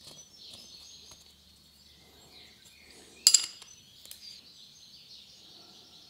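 Small metal parts handled by hand, with light ticks and one sharp metallic clink a little over three seconds in, as an oil-burner nozzle with a sealing washer is fitted into its steel holder.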